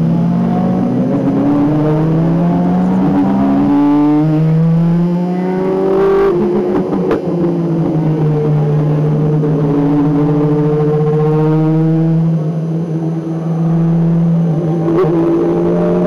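Ferrari 575 GT race car's V12 engine on track, revving up through the gears with a shift about four seconds in, then holding steady high revs with a brief lift about thirteen seconds in.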